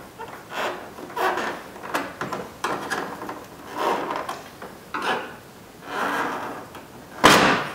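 A 2008 Chevy Equinox's chrome grille center bar and its plastic clips being pried and wiggled loose from the headlight: a run of short scrapes, creaks and knocks, with one loud sharp knock near the end.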